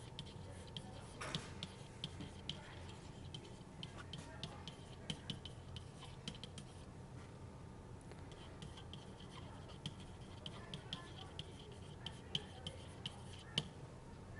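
Faint tapping and scratching of a stylus writing on a tablet surface: many short clicks as strokes start and stop, with stretches of light scratching, over a low steady hum.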